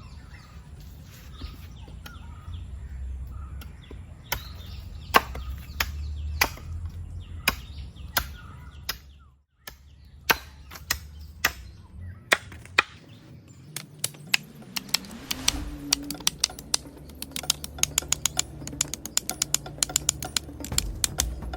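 Repeated sharp chopping strikes with a hand tool, about a second apart at first, then coming quickly, several a second, in the second half.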